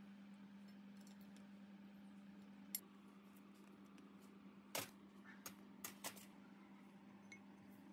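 Small, sharp metallic clicks and taps of hand tools working on a steel shaft and sprocket: one click early, then a cluster of several about five to six seconds in, over a steady low hum.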